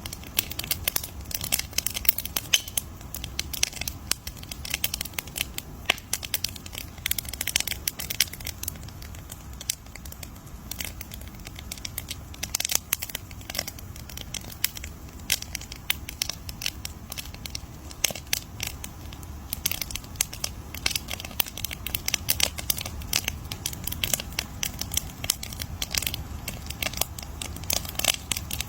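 Campfire crackling, with a dense run of irregular sharp pops and snaps over a low steady rumble of the burning fire.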